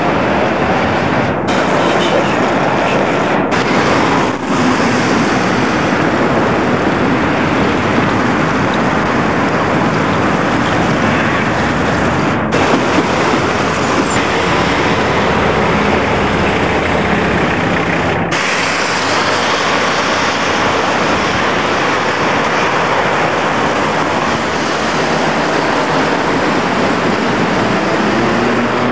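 Steady, loud rushing noise of street traffic and wind on the microphone of a camera riding along on a bicycle, cutting out for an instant a few times.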